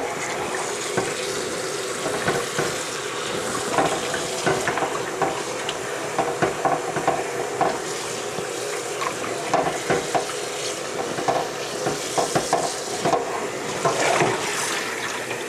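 Water running from a kitchen faucet and splashing onto whole fish in a glass baking dish in a stainless steel sink, with hands rubbing and turning the fish. Frequent small clinks and knocks of the glass dish against the sink.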